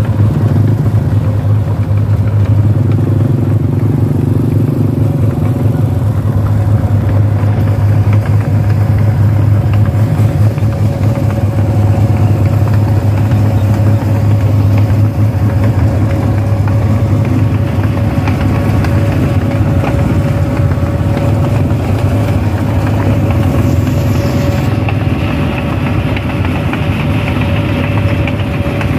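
Rice combine harvester's diesel engine running steadily as the machine drives along a dirt track, a steady whine over the low engine drone.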